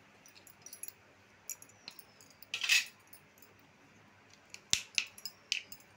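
Light clinks and clatter of stainless steel bowls and plates being handled while food is mixed by hand. A brief louder scrape comes about two and a half seconds in, and a few sharp clinks come near the end.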